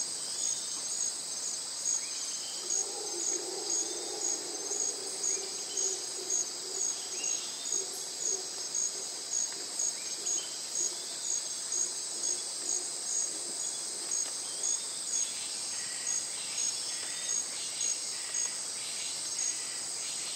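Insects chirping in a steady high-pitched chorus, rising in a regular pulse about three times every two seconds, with a few faint bird chirps. A low hum runs underneath from about two seconds in until about fourteen seconds in.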